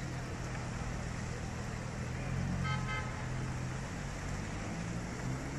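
City traffic: a steady low engine drone from passing vehicles, with a brief two-part toot about two and a half seconds in.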